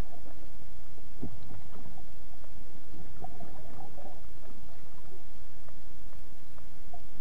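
Air bubbles escaping from a submerged person's gagged mouth, heard underwater: scattered bubbling gurgles over a steady low rumble, with a burst about a second in and more around three to four seconds in.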